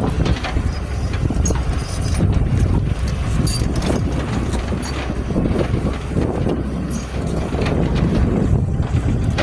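Excavator engine running steadily, with wind buffeting the microphone and a few brief high clinks.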